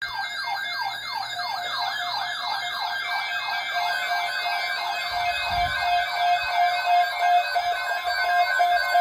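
Electronic emergency alert alarm with several siren tones at once. A fast downward-sweeping wail repeats several times a second over a wavering higher warble, then gives way to a steady pulsing beep about halfway through.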